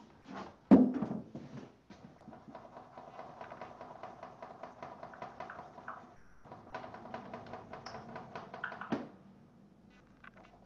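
Quick scratchy shading strokes of a drawing tool on paper, several strokes a second, in two runs with a short pause between them. A sharp knock on the desk comes about a second in and another near the end.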